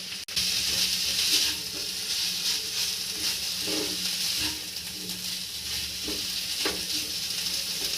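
Bottle gourd greens with poppy-seed paste sizzling in mustard oil in a kadai, with a spatula stirring and scraping the pan now and then.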